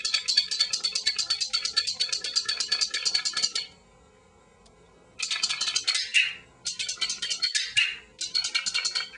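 Animal-training clickers clicked in rapid succession, about ten clicks a second, for about three and a half seconds. After a short pause, three shorter runs of clicks follow, each ending with a brief higher tone.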